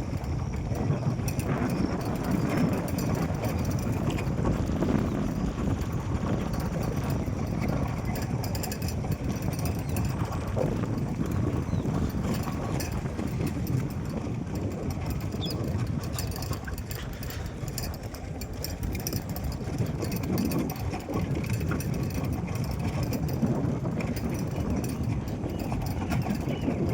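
Rumbling ride noise from a moving vehicle on a rough track, with wind buffeting the microphone and uneven knocks and rattles.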